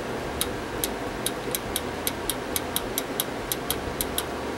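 Bandsaw blade butt welder's anneal button being pulsed, about fifteen sharp clicks at roughly four a second, heating the fresh blade weld in short bursts to anneal it.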